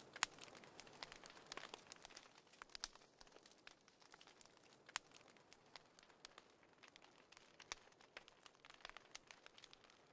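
Faint, irregular crackles and clicks over a soft hiss.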